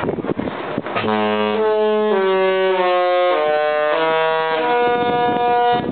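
The Disney Magic's musical ship horn playing a short tune, starting about a second in and stepping through chords of several notes at once, each held about half a second, the last note held longer before it cuts off near the end.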